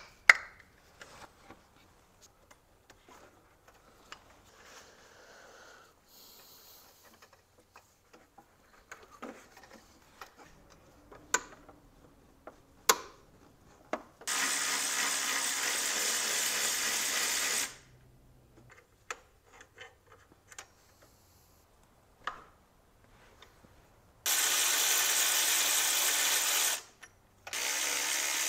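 Snap-on cordless ratchet running in three steady bursts of a few seconds each, the last starting near the end, driving out mounting bolts on a BMW E46's power steering pump and accessory bracket. Scattered clicks and knocks of hand work come before and between the runs.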